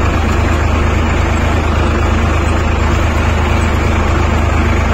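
Tractor diesel engine running at a steady speed while pulling a land leveller across the field: a constant low drone with even mechanical noise over it.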